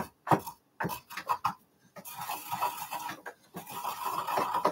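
Pestle working thyme leaves into powder in a small mortar: a few sharp taps, then from about two seconds in a steady scraping grind.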